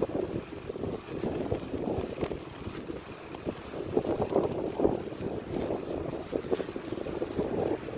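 Wind buffeting the microphone over the rumble and irregular rattling of a bicycle rolling along rough tarmac.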